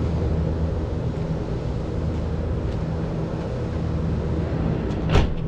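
Kove MX250 motocross bike's single-cylinder four-stroke engine idling steadily on its first run, left running to circulate oil. A short sharp knock about five seconds in.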